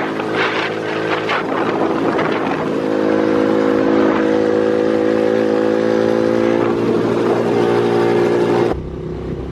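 Polaris RZR 170's small single-cylinder four-stroke engine running under throttle as the side-by-side drives off, getting louder over the first few seconds and then holding a steady note. The sound changes abruptly near the end.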